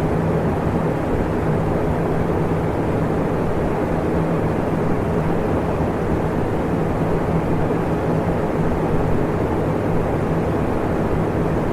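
Electric fan running steadily: an even rush of air with a faint low motor hum beneath it.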